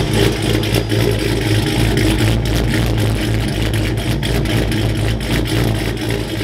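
Ram 1500 R/T's 5.7 Hemi V8 idling steadily through its performance exhaust, a deep, even engine note without revs.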